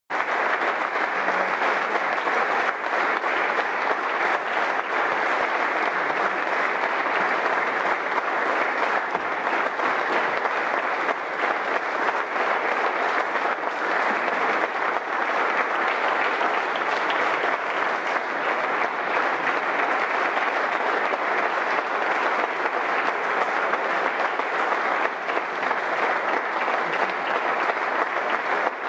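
A roomful of people applauding, dense and steady clapping with no break.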